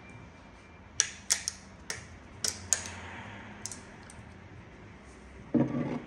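Light metallic clicks and clinks, about eight of them at uneven intervals over roughly three seconds, as parts are handled on a bare diesel engine block. Near the end there is a short, dull rustle as a sleeve brushes close by.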